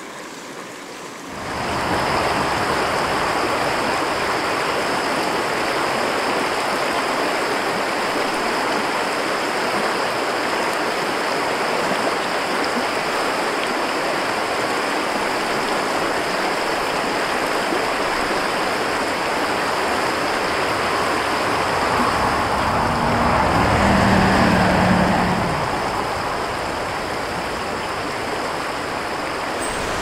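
Shallow mountain creek rushing steadily over rocks and out of corrugated-metal road culverts, stepping up in loudness about a second and a half in. A low rumble swells and fades about 23 to 25 seconds in.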